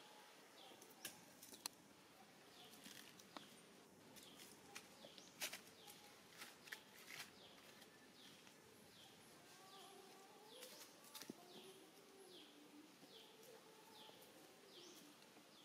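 Faint outdoor ambience: a bird repeats a short, falling chirp about once a second, with scattered sharp clicks and rustles in the first half.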